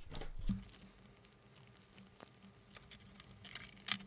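Faint plastic clicks and rubbing from a roll-up plastic fish-measuring scale being handled: its slider pushed back along the strip and the strip rolled up. There is a soft thump about half a second in and a sharper click near the end.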